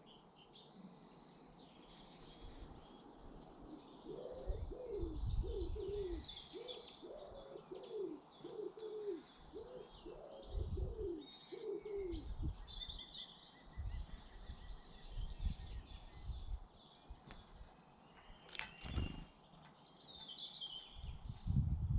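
Small garden birds chirping and twittering throughout. From about four seconds in to about twelve seconds, a pigeon coos a repeated low phrase of about eight notes. Dull low rumbles come and go, with a sharp click near the end.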